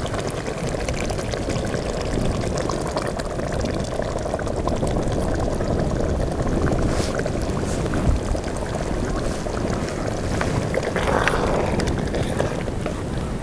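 Chicken karahi gravy simmering and bubbling in an open pot: a steady, rushing, liquid noise.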